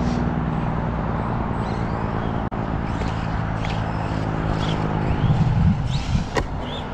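Electric 1/10-scale RC monster truck running with a steady motor hum that shifts near the end, with a sharp knock about six seconds in. Birds chirp in the background.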